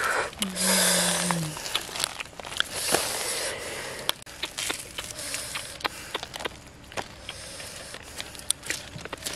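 Hands tearing apart a charred whole roast chicken: the burnt crust crackles and the meat pulls apart in a run of small irregular clicks and snaps, with the banana leaf underneath crinkling. A brief low hum, dropping slightly in pitch, comes about half a second in.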